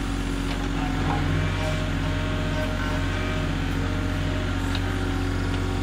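Mini excavator's diesel engine running steadily as it digs a trench, with a few light clicks over it.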